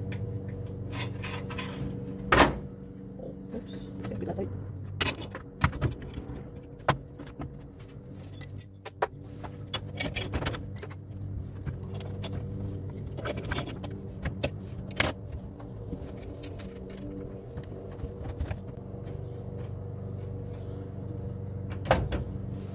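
Clinking and knocking of steel parts being handled and bolted up by hand: a tack-welded steel transmission crossmember test-fitted with its bolts and nuts, with one sharp metal knock about two seconds in. A steady low hum runs underneath.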